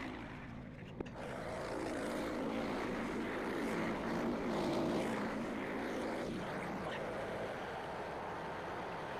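Frontier OS27 bandsaw mill's small gas engine running steadily. There is a click about a second in, after which it gets a little louder.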